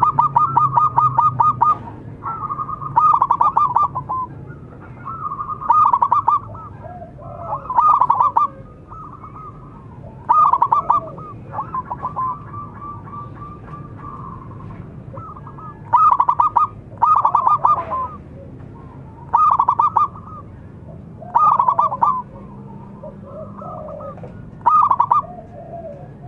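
Zebra dove (perkutut) cooing. Loud phrases of fast, staccato notes come about every two to three seconds, about ten in all, with fainter, lower calls in between.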